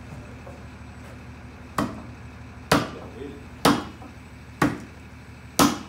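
Five hammer blows, about one a second, each with a short ring, on the wrench bar set in the threaded cap of an oilfield pump. The blows drive the cap tight and seat it.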